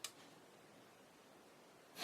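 Near silence: faint room hiss, with one short, sharp click right at the start.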